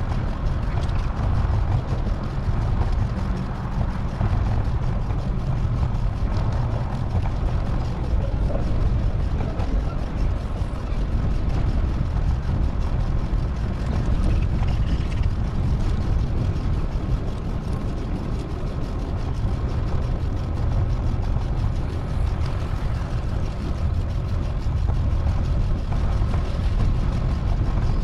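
Steady wind rumble and road noise from a bicycle ride, on a microphone carried along by the rider.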